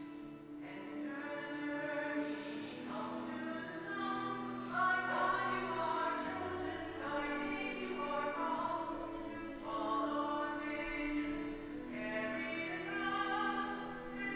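Recessional hymn: singing with sustained instrumental accompaniment, in phrases over held bass notes.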